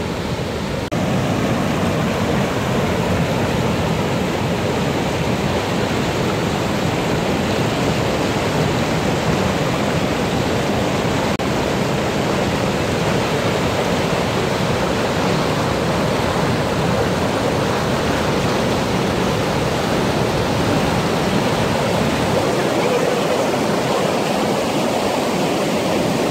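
Swat River's fast, silty water pouring over a long low concrete weir and churning into white-water rapids: a steady rushing, a little louder from about a second in.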